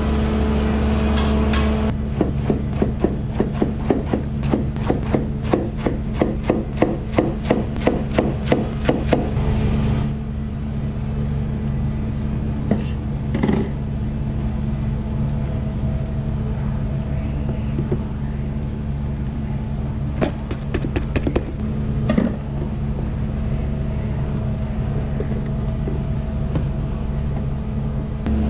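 Steady hum of restaurant kitchen equipment, with a quick, even run of sharp knocks, two or three a second, for about eight seconds, then a few scattered knocks later on.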